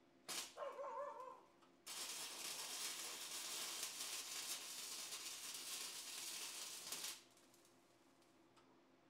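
Welding arc crackling and hissing steadily for about five seconds as a repair weld is laid on steel. It is preceded by a brief first burst of the arc with a wavering tone.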